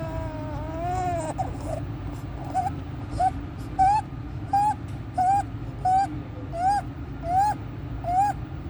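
Newborn's inspiratory stridor: a short, high-pitched crowing tone with each rapid breath, about one and a half a second, the noisy breathing of a narrowed upper airway. It follows a brief cry at the start.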